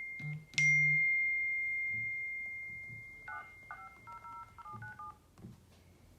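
Smartphone sounds: a single struck, bell-like chime that rings down slowly, then, about three seconds in, a quick run of short keypad dialing tones as a number is tone-dialed.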